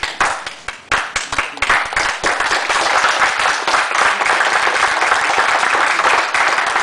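Audience applause: scattered claps at first, filling into steady clapping about two seconds in.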